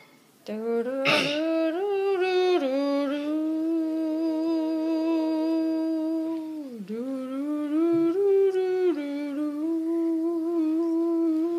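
A child humming a slow, drawn-out tune in long held notes, with a short break about two thirds of the way through. A brief knock sounds about a second in.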